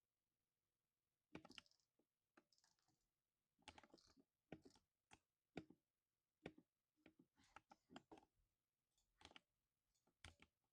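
Typing on a 60% mechanical keyboard with lubed silver switches: keystrokes in irregular bursts, starting about a second in.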